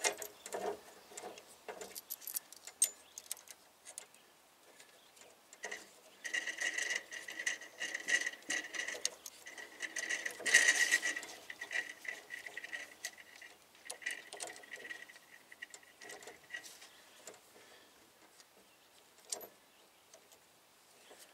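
Small metal hand tools clinking and scraping on a brake line during flaring preparation. About six seconds in, a thin, steady metal-on-metal squeal starts as the tool is worked on the line; it comes and goes for about ten seconds, loudest near the middle.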